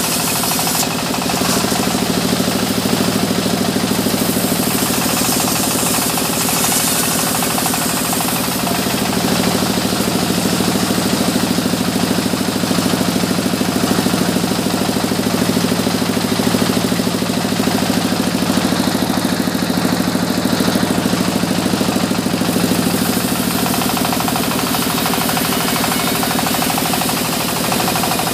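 Sawmill band saw running and ripping timber boards: a steady, loud machine drone with the rasping hiss of the blade in the wood, which swells and eases as each board is fed through.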